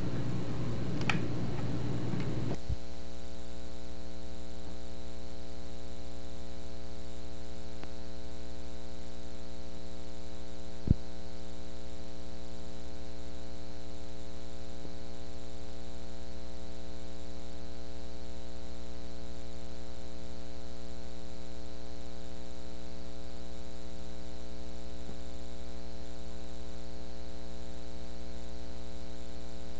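Steady mains hum with many evenly spaced overtones on the soundtrack of a blank stretch of videotape. A louder, noisier sound stops abruptly about two and a half seconds in, and a single sharp click comes about eleven seconds in.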